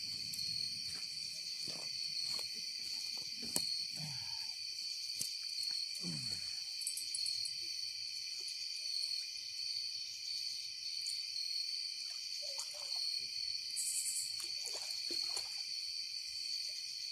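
Steady night chorus of crickets and other insects, a continuous high trill, with a few faint scattered knocks and short low sounds.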